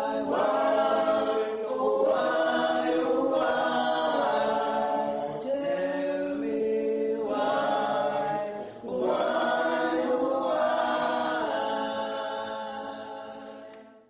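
A small group of young men singing together a cappella, holding sustained chords in phrases, with a short break about nine seconds in; the singing fades out at the end.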